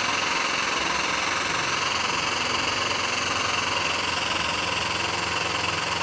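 A frame-straightening machine's pump running steadily with a hiss while a chain pull is applied to the damaged rear quarter panel, then cutting off abruptly at the end.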